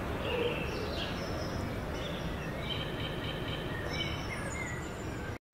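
Small birds chirping and twittering over a steady outdoor background rush. It cuts off abruptly just before the end.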